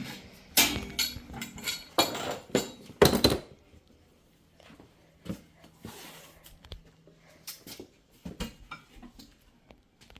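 Hands moving pipes or lines around: a few loud, short scraping rustles in the first few seconds, then scattered light clicks and taps.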